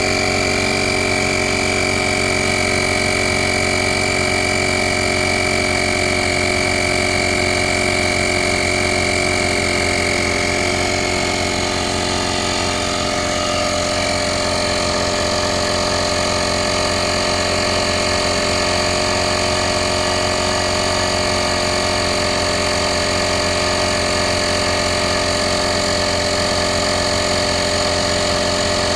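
VacLife portable tire inflator's air compressor running steadily while pumping up a car tire, a fast pulsing hum with a high whine over it.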